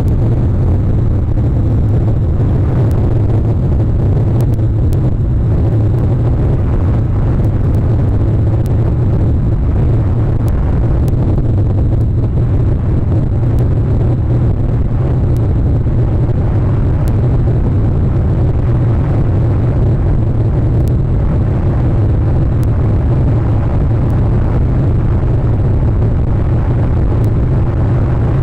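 Steady low rumble and hiss picked up by an outdoor nest camera's microphone, with faint scattered clicks.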